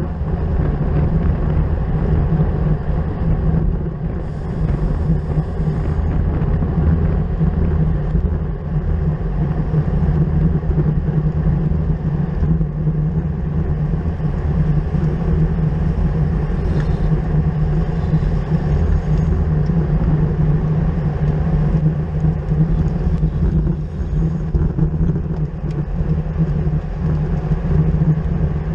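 Steady wind rush and road rumble on a bicycle-mounted camera's microphone while riding at race speed, with a constant low hum and no breaks.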